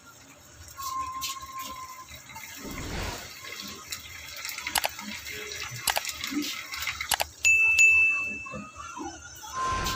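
Liquid poured from a can of sardines into a frying pan, with scattered clicks and a short bell-like ding from a subscribe-button animation about three-quarters of the way in.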